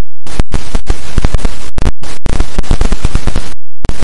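Loud crackling noise, dense with sharp pops, that cuts out abruptly several times. It is a sound effect laid over the end screen.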